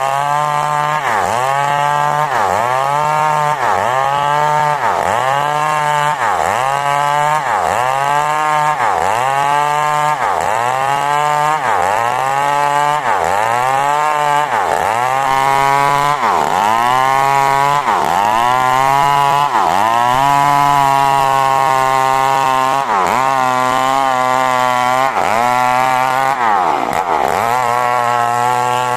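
Two-stroke chainsaw running at high revs while cutting coconut wood into boards. Its pitch sags and recovers over and over, about every second, as the chain bites under load, and it holds steadier for several seconds around the middle.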